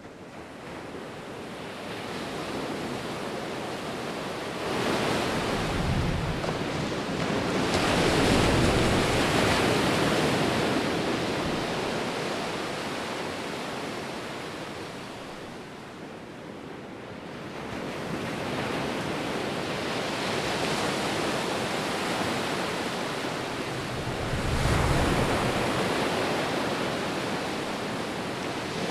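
Ocean surf breaking and washing over a rocky shore. It fades in at the start, then swells and eases in long surges, with heavy rushes about five to ten seconds in and again near the end.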